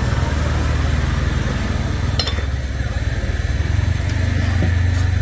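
A motor running with a steady low rumble, and a short click about two seconds in.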